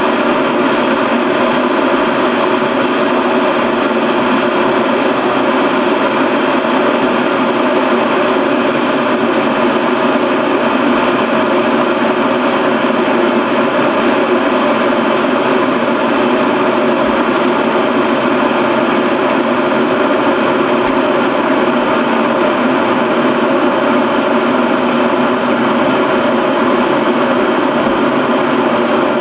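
REDMOND RK-M1441 electric kettle heating water, a steady, unchanging rushing noise of the water coming up toward the boil.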